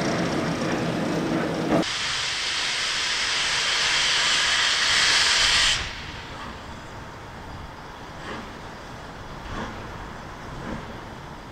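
A steam locomotive at close range: a low steady droning tone, then, just under two seconds in, a loud hiss of escaping steam that lasts about four seconds and cuts off suddenly, leaving a faint low background.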